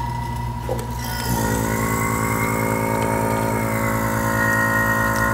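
Electric AC vacuum pump running steadily, pulling down an empty air-conditioning system through manifold gauges. About a second in its sound thickens and grows a little louder, then holds steady.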